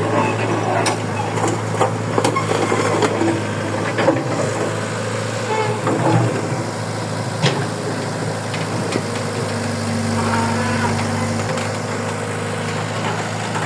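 Heavy machine's engine running steadily at a constant pitch, with scattered short knocks and clanks through the first half or so.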